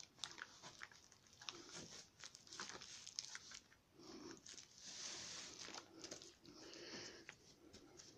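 Cardboard firework cake boxes being handled and set down on a carpet: faint scattered taps and knocks, with a longer soft rustling scrape in the middle.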